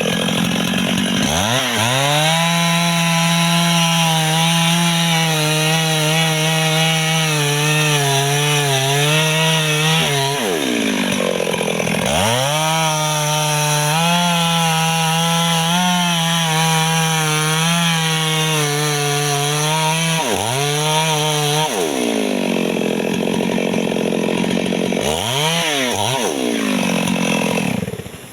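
Chainsaw cutting an apricot tree: the engine revs up to full throttle and holds, its pitch wavering and sagging under the load of the cut, drops back about ten seconds in, then revs and cuts again until about twenty seconds. It blips up twice more before cutting off near the end.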